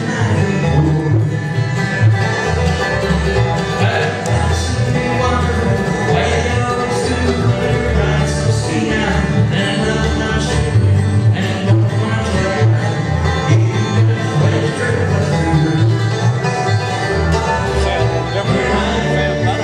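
Bluegrass band playing: banjo, mandolin and acoustic guitar, over a steady plucked bass line.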